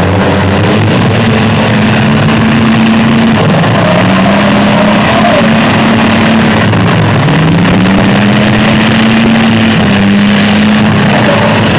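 Several small pickup-truck engines running and revving together, their pitch repeatedly rising and falling, loud and unbroken throughout.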